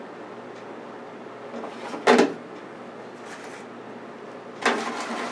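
Metal wire rack and a foil muffin tray knocking and scraping as the tray is slid into a countertop air fryer oven: one sharp clack about two seconds in and a longer clatter near the end.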